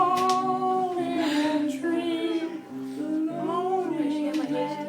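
A man singing a song unaccompanied, holding long, slightly wavering notes.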